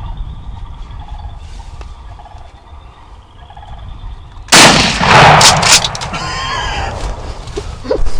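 A single loud shotgun blast about four and a half seconds in, the shot that kills a turkey gobbler, with its report echoing briefly afterwards. Before it, only quiet woods sound.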